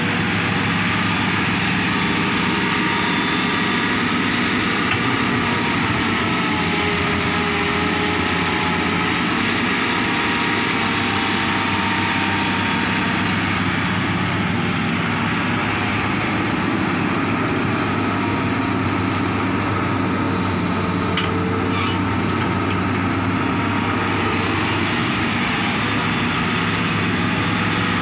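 Hitachi hydraulic crawler excavator's diesel engine running steadily as it digs, its pitch wavering briefly for a few seconds early on as the hydraulics take up load.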